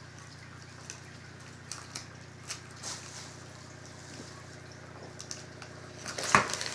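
Faint rustles and light clicks of clothing and wrapping paper being handled, scattered over a faint steady low hum, with one louder, sharp rustle near the end.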